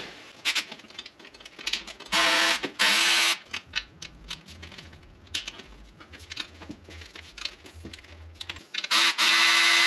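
A power tool running in two short bursts about two seconds in and a longer burst near the end, spinning out the bolts that hold a 722.6 automatic transmission to the engine. Light metallic clicks and taps of tool handling come in between.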